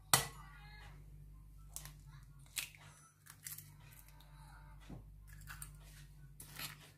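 An egg cracked with one sharp knock right at the start. Smaller crackles and clicks of eggshell follow as it is broken open and emptied into a glass bowl of sliced eggplant.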